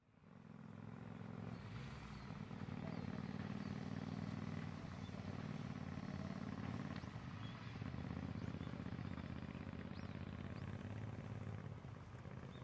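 Motorcycle engines running at low speed as two motorcycles ride past, fading in at the start.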